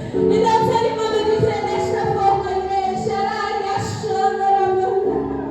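Worship song sung live, with a woman's voice leading over held accompanying notes.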